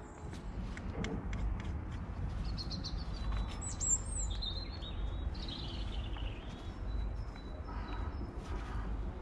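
Small birds chirping and singing, with a burst of high gliding calls about three to six seconds in, over a steady low rumble and scattered light clicks.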